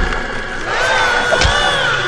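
Horror ride-film soundtrack: a chorus of wavering, wailing voice-like cries, with a heavy thump at the start and another about one and a half seconds in.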